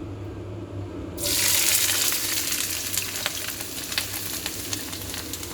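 Chopped onions hitting hot oil in a kadai: a sudden loud sizzle starts about a second in and carries on as steady frying, with a few light clicks.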